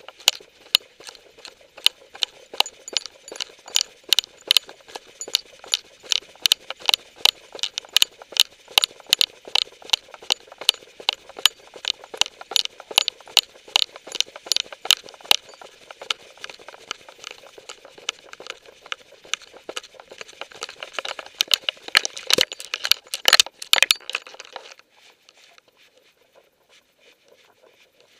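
Clicking and rattling from a collar-mounted camera and collar hardware, in time with a dog's moving strides, several clicks a second. The clicks bunch up and grow louder, then stop near the end.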